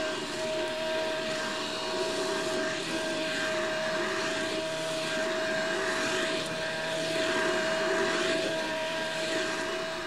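Vacuum cleaner running steadily with a constant whine over its motor noise, a canned home sound effect from an answering-machine tape.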